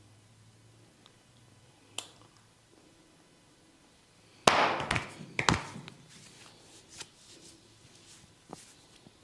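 Sharp cracks and pops from a barber's hands working a client's hair and scalp in a head massage: a single click about two seconds in, then a loud burst of crackling with several sharp pops near the middle, and a few fainter clicks after.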